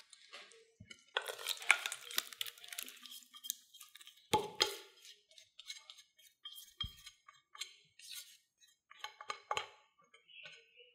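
Wet grated potato tipped from a glass bowl onto a cloth and scraped out with a silicone spatula: irregular scraping and clinks of glass, with one sharp knock a little before halfway.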